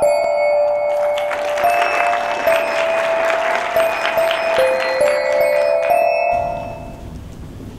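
Bell-like mallet-percussion intro jingle, short ringing notes stepping through a simple melody, with audience applause under it from about a second in. Both fade out about six seconds in, leaving the low room noise of the hall.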